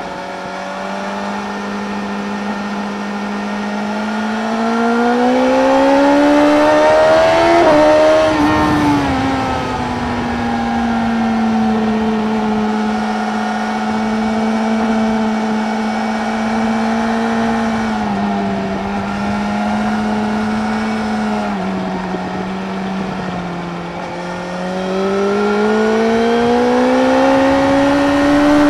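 Onboard sound of a 2017 BMW S1000R's inline-four engine through an Akrapovic slip-on exhaust at track speed, over a steady rush of wind. The engine note climbs for several seconds under acceleration, falls away, holds steady through a long corner, drops in a couple of small steps, and near the end climbs again as the bike accelerates.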